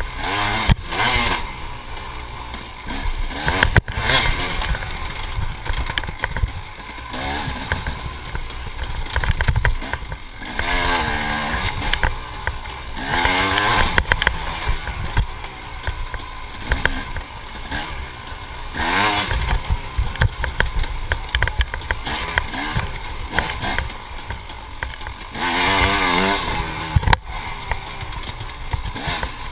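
Dirt bike engine revving up and down over and over, its pitch rising and falling with the throttle, over a steady rumble from the ride.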